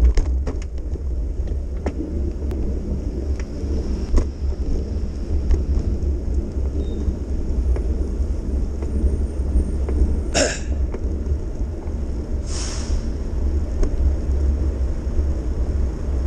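Steady low rumble of wind buffeting a moving camera's microphone, with light road noise. Two short hissing swooshes come about two-thirds of the way through, two seconds apart.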